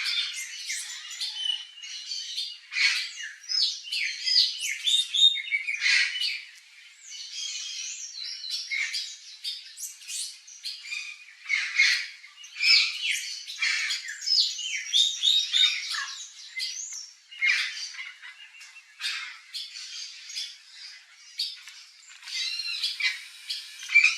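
Turquoise-fronted parrots (Amazona aestiva) calling: a rapid, continuous string of harsh squawks mixed with short whistled notes that slide up and down in pitch.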